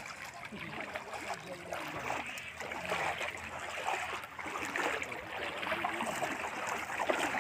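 Bare and booted feet wading through shallow standing rainwater, making irregular sloshing and splashing.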